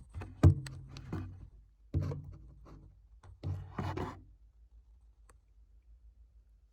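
Handling noise: rubbing and scraping with several sharp knocks, the loudest about half a second in, stopping a little after four seconds.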